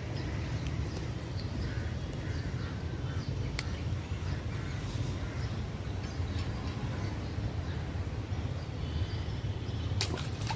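Birds calling over a steady low rumble, with two sharp clicks: one about a third of the way in, one near the end.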